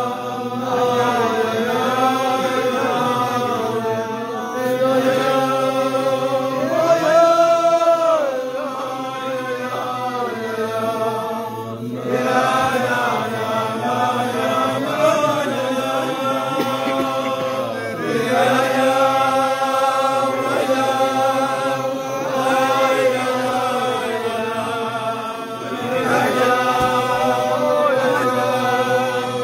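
A group of men singing a slow wordless Hasidic niggun together in long, held notes on 'oi' syllables, the melody rising and falling.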